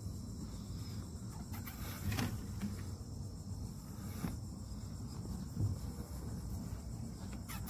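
Quiet truck-cab ambience: a steady low rumble under a faint, high, steady whine, with a few soft rustles and taps from a hand moving over the seat and console. The loudest tap comes about two seconds in.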